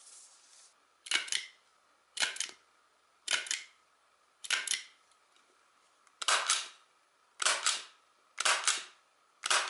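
Eight sharp metal snaps about a second apart, each a quick double click. The first four come from a Kangaro plier-type staple remover working staples out of paper; the last four, broader and fuller, from a MAX HD-50F flat-clinch stapler driving staples through a stack of paper.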